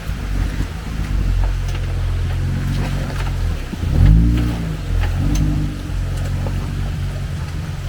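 Off-road 4x4's engine running at low revs, given two brief bursts of throttle about four and five seconds in, with scattered clicks and knocks.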